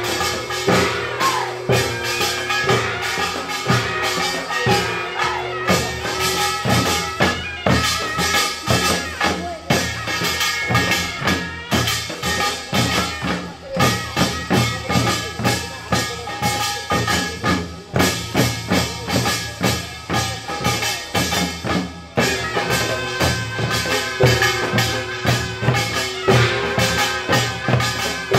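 Samul nori percussion ensemble playing a fast, dense rhythm on janggu hourglass drums and buk barrel drums, with gongs ringing over the strokes.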